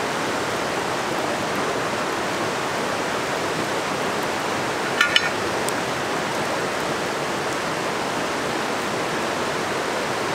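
Steady rush of a river flowing over stones, with a short ringing clink about five seconds in.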